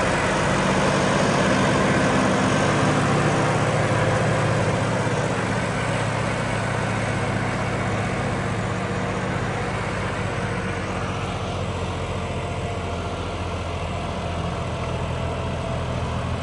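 John Deere tractor's diesel engine running steadily. Its note shifts slightly a few seconds in and it grows a little quieter.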